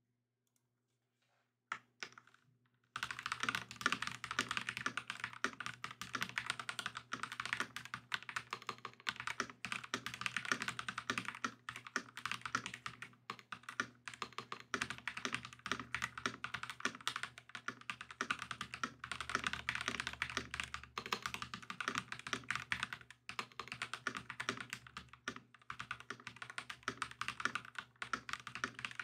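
Fast touch-typing on a stock FLESPORTS MK870 mechanical keyboard with factory-lubed LEOBOG GrayWood V3 linear switches and PBT double-shot Cherry-profile keycaps: a dense, continuous stream of keystrokes. The opening moments are silent, a few single key presses come about two seconds in, and steady typing starts about three seconds in.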